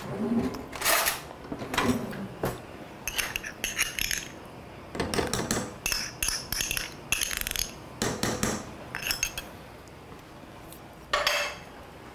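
Metal spoon and whisk clinking and scraping against a stainless steel saucepan of hot milk, in many short irregular bursts.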